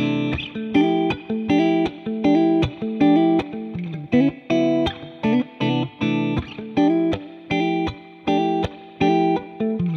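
Background music: plucked-string notes in a steady, even rhythm.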